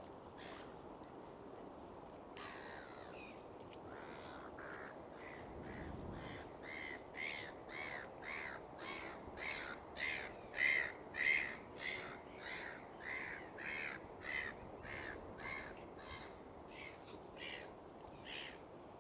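A bird calling over and over in short, harsh calls, about two a second. The series builds to its loudest about halfway through, then fades toward the end, over a steady low background hiss.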